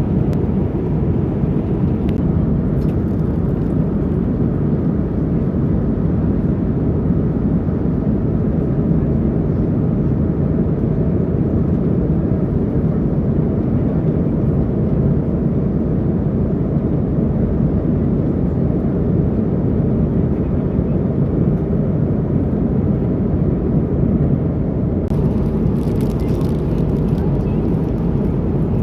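Steady airliner cabin noise in flight: a constant low hum of the engines and airflow heard inside the cabin.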